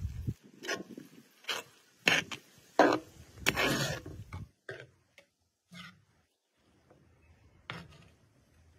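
A series of irregular sharp knocks and clicks, loudest about two and three seconds in, with a longer scraping noise around three and a half seconds in and a last knock near the end.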